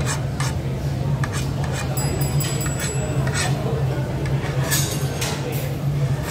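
Cutlery and glass clinking against dishes during a meal, in many short light clinks, over a steady low hum.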